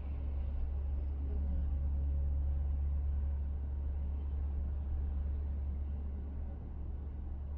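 Steady low rumble of a car driving at expressway speed, mostly tyre and road noise, swelling slightly a couple of seconds in before easing.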